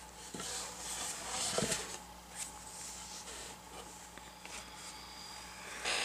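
Soft scratchy rustling of a paintbrush working paint on a painting panel, with the panel shifted and turned on its mat. The noise swells a few times in the first two seconds and again near the end.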